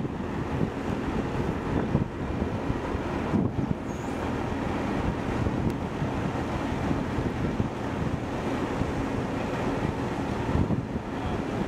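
The Ultra Heavy-Lift Amphibious Connector prototype running steadily as the tracked craft crawls up off the beach, a low engine hum under gusty wind buffeting the microphone.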